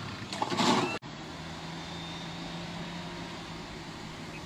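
People shouting for about the first second, cut off suddenly, then the steady low hum of an idling vehicle engine.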